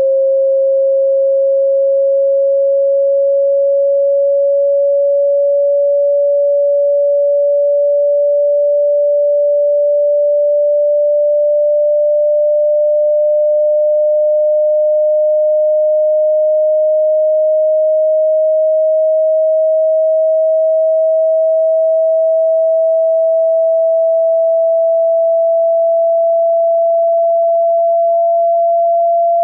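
A single pure sine tone, steady in loudness, gliding very slowly upward in pitch. It is a frequency sweep for shaking water out of a wet loudspeaker.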